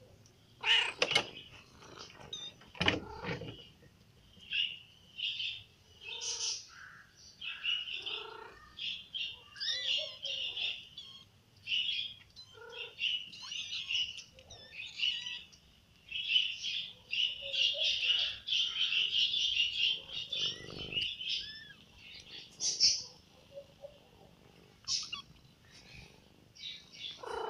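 Small birds chirping in quick, high, repeated calls, thickest in a dense run about two-thirds of the way through. Two sharp knocks come in the first few seconds.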